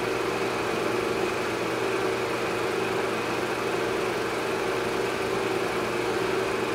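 A steady mechanical drone with hiss, holding one level throughout with no breaks or changes.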